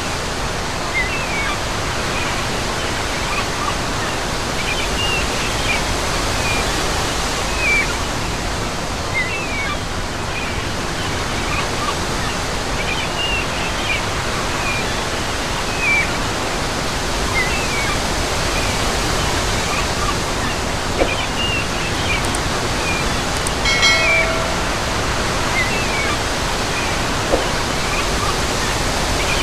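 Steady wash of small sea waves breaking on a sandy shore, with short high chirps recurring about once a second and one brief pitched call late on.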